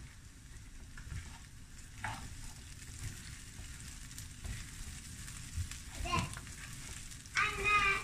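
Wooden spoon stirring rice pilaf with meat in a nonstick frying pan, with a faint, steady sizzle of frying under small scrapes of the spoon. A voice comes in briefly near the end.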